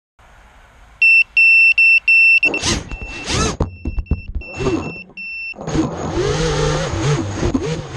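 FPV racing quadcopter lying upside down after a crash. There is a run of short, high electronic beeps, then its brushless motors spin up in two or three short bursts as it flips itself over in turtle mode. From about the middle on, the motors run steadily with a wavering pitch.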